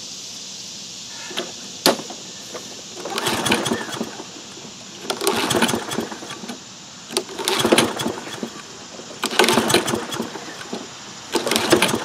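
Single-cylinder Kohler engine of a Toro Recycler push mower being pull-started on its recoil starter about five times, each pull a short burst of cranking, without the engine firing. It turns over normally but won't catch because no fuel is getting through the carburetor.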